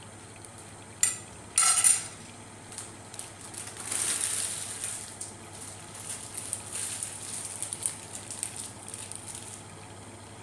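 A sharp clink, then a brief clatter of metal pots and utensils ringing out, a second or two in. From about four seconds, food sizzles and crackles in hot oil on the stove, then fades out near the end.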